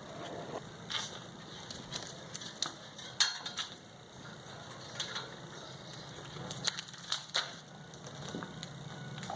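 A run of irregular sharp clicks and light knocks, about a dozen, the loudest about three seconds in, over a low steady hum.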